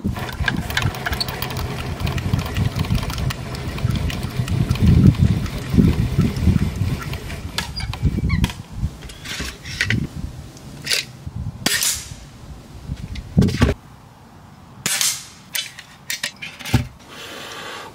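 Air pistol shots at a paper target: several sharp cracks about a second apart over the second half, after a stretch of rumbling handling noise.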